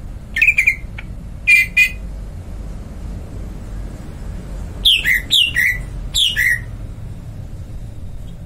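A bird calling in short, harsh squawks: two in the first two seconds, then three quick calls about five seconds in, each falling in pitch. A steady low hum runs underneath.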